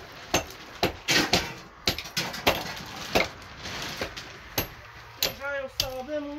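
About ten sharp, irregular knocks, like hard strikes on wood or masonry during building work on a block-walled house. In the last second a voice rises and falls.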